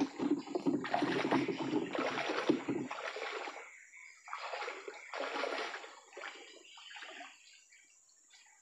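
Water splashing and sloshing as a person wades on foot through a shallow river. It is loudest for the first three seconds, then breaks into a few fainter splashing steps that die away near the end.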